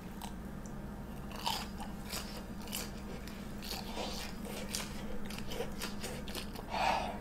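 Bites and chewing into a mozzarella hot dog, a Korean corn dog with a crisp fried breadcrumb crust: irregular crunches starting about a second in, with a louder short sound near the end.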